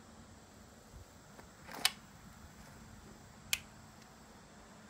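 Two sharp metallic clicks from a flintlock rifle's lock as it is worked by hand, one just under two seconds in and a crisper one about a second and a half later.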